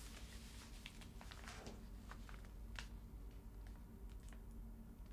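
Faint handling sounds of a paper pattern and fabric on a cutting mat: a few light, scattered clicks and taps over a low steady hum.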